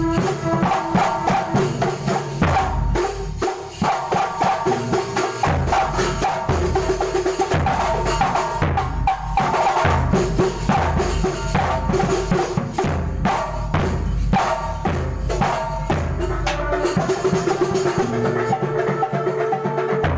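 Kuntulan ensemble playing: frame drums and a bass drum beat a steady, busy rhythm, with a wavering melodic line over the drumming.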